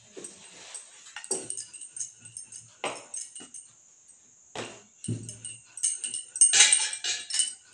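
Bangles clinking and a wooden rolling pin knocking on a wooden table as puri dough is pressed and rolled out, in scattered sharp knocks with a duller thud about five seconds in. The bangles jingle loudest near the end.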